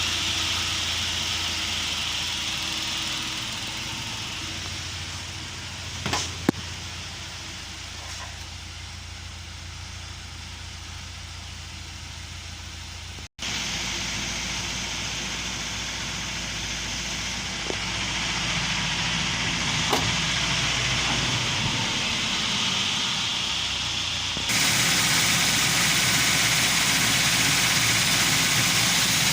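UAZ Patriot engine running at idle, the engine in which the owner hears a knock. A few sharp clicks stand out, and the sound changes abruptly twice, about halfway through and near the end.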